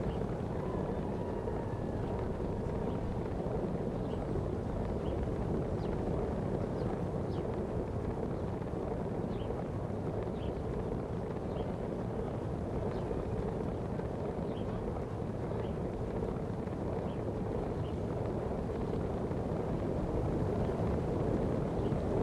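Steady wind rush and road rumble from riding a bicycle, with faint short chirps higher up.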